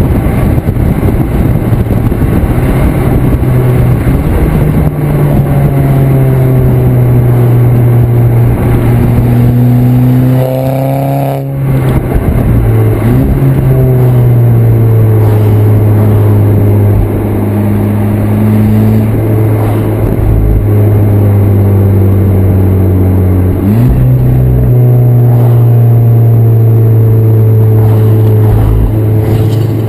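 Volkswagen Golf VI R's turbocharged 2.0-litre four-cylinder heard at its twin tailpipes while driving, through a 200-cell metal-catalyst downpipe, a straight centre pipe and the stock rear muffler. A steady exhaust drone with road noise, a brief dip in revs about eleven seconds in, a jump in revs about twenty-four seconds in, and revs climbing near the end.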